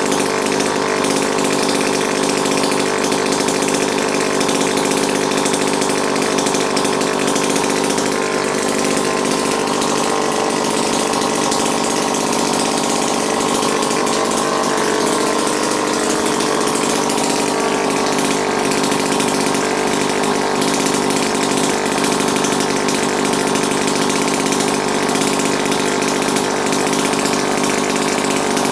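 Small air-cooled single-cylinder engine running steadily at a constant speed, held there by its mechanical flyweight governor, while it warms up.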